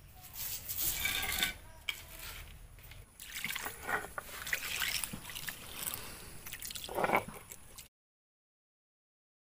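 Water poured from a steel bowl onto a flat stone grinding slab, splashing and trickling unevenly; the sound cuts off to dead silence about eight seconds in.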